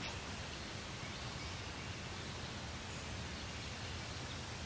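Steady outdoor background noise: an even hiss with a faint low hum underneath, no distinct events.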